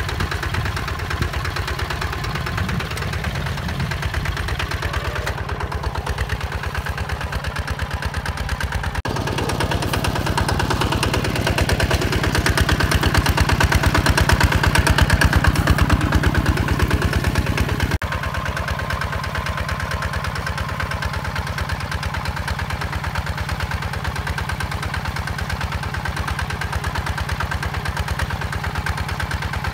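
Single-cylinder diesel engine of a HINOTA HG Gold 155 DI walk-behind tractor chugging steadily in rapid, even beats while pulling its rotary tiller through dry soil. It is louder and closer between about 9 and 18 seconds in, with the sound changing abruptly at both points.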